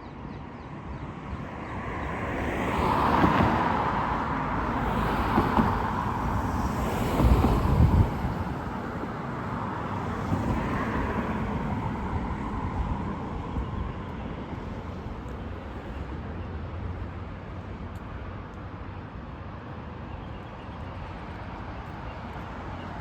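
Street traffic: several vehicles pass one after another in the first half, each swelling up and fading away, the loudest and deepest about seven to eight seconds in. After that there is a steadier background of traffic.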